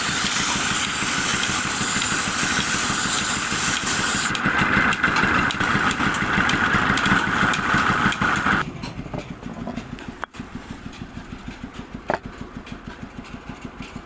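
An engine running with a loud hiss over its fast, even pulsing. About nine seconds in, the hiss stops and the engine carries on at a quieter idle.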